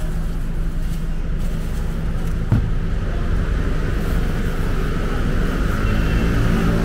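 Ring gas wok burner running at a steady low rumble as it heats an empty wok, with a single knock about two and a half seconds in.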